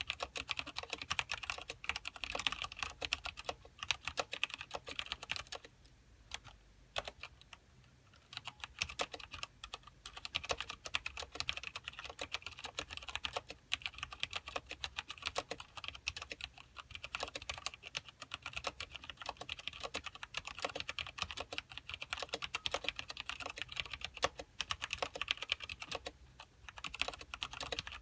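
Continuous fast typing on a mechanical keyboard with Cherry MX Black linear switches and thin ABS keycaps: dense clacking keystrokes, with short pauses about six seconds in and near the end.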